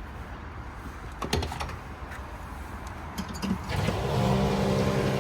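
A few sharp clicks, then about three-quarters of the way in a steady mechanical hum switches on abruptly and keeps running: the petrol station fuel pump starting up, which is taken on the spot for a generator.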